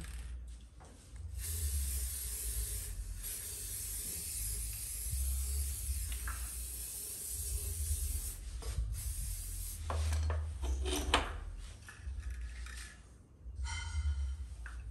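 Aerosol spray-paint can hissing in long presses as red paint is sprayed onto a car's wheel hub, stopping about ten seconds in; a few clicks and a short rattle follow.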